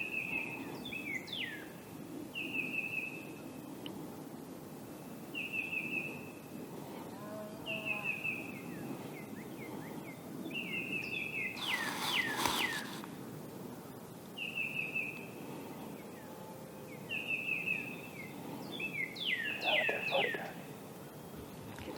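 A songbird repeating a short, high trilled phrase every two to three seconds, with other birds calling in the background and a brief harsh, rattling call about halfway through.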